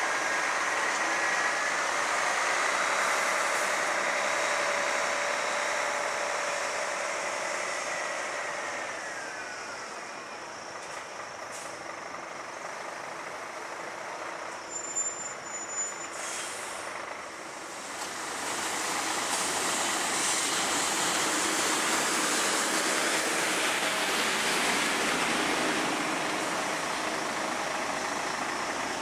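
Scania P400 front-lift garbage truck: its engine and hydraulics run with a steady whine that glides down and fades about nine seconds in. The engine then runs quieter, with a short hiss of the air brakes about halfway through. It grows louder again as the truck pulls up close near the end.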